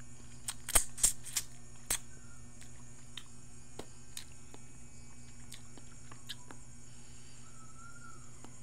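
Close-up eating sounds: several sharp mouth and food clicks in the first two seconds, then only sparse faint ticks, over a steady electrical hum.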